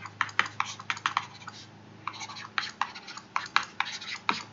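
Stylus tip tapping and scratching on a tablet screen while handwriting equations: a quick, irregular run of sharp ticks with a brief pause near the middle.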